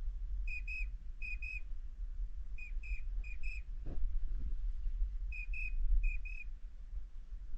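Duck whistle call blown in quick pairs of short, high, steady notes, six pairs in all, as used to call ducks in. A soft knock sounds about four seconds in, over a constant low rumble.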